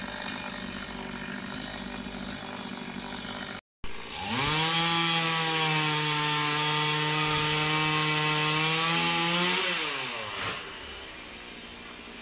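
Chainsaw engine. A steady machine sound is cut off briefly, then the engine revs quickly up to full throttle, holds one steady high pitch for about five seconds, and drops away as the throttle is released.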